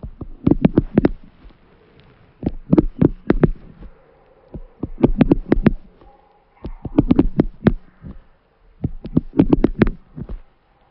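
Bursts of quick sharp taps or clicks, several to a burst, repeating about every two seconds with short pauses between.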